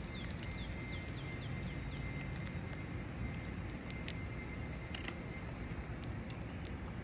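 Outdoor ambience: a steady low background rumble with a small bird's faint, quick falling chirps in the first two seconds, and two light clicks about four and five seconds in.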